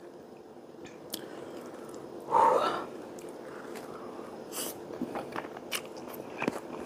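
Mouth sounds of eating stir-fried noodles: chewing and slurping, with wet clicks and smacks. A louder slurp comes about two and a half seconds in, and the clicks grow busier in the second half as more noodles are sucked in from the chopsticks.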